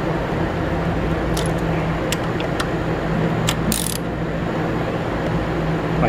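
Steady background hum, with a few scattered metallic clicks and a short rattle from a socket ratchet tightening a motorcycle's front brake caliper bolts.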